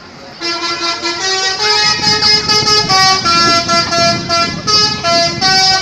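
Multi-tone 'telolet' musical horn playing a rapid tune of stepped notes, each lasting a fraction of a second, starting about half a second in. A low rumble runs underneath from about two seconds in.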